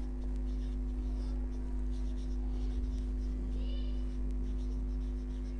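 Marker pen writing on a whiteboard: faint scratchy strokes with a brief high squeak about two-thirds of the way through, over a steady electrical hum.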